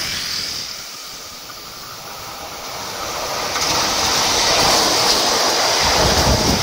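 Diesel locomotive hauling passenger coaches approaching and passing close by: engine and wheels on the rails grow steadily louder from about three seconds in, with a heavy low rumble near the end as the coaches roll past.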